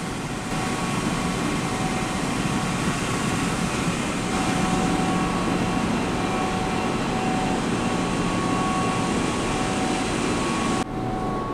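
Gas-fired hot water boiler running: a steady rush from its burner and combustion-air blower, with a few faint steady hums. About a second before the end it changes abruptly to a duller machinery hum.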